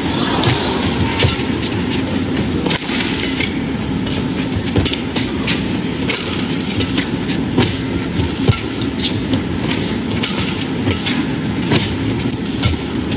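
Badminton rally: sharp racket strikes on the shuttlecock, irregularly spaced, over the steady loud hubbub of the arena.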